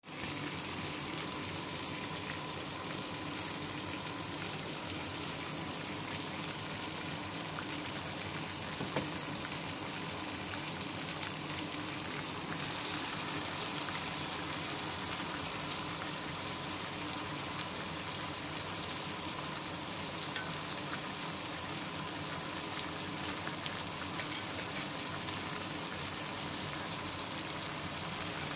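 Cherry tomatoes and capers frying in oil in a pan, a steady sizzle, with one sharp click about nine seconds in.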